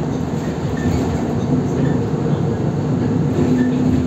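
Inside a moving city bus: a steady rumble of engine and road noise. A droning hum comes up strongly about three seconds in.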